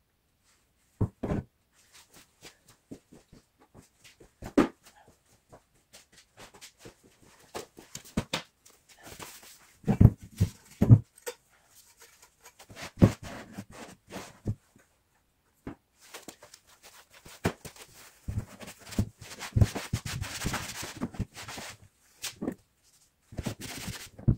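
Irregular knocks, clicks and scraping of metal parts being handled on a Honda HS50 snowblower's handlebar frame. The loudest knocks come about ten to eleven seconds in, and a stretch of rustling and scraping follows near the end.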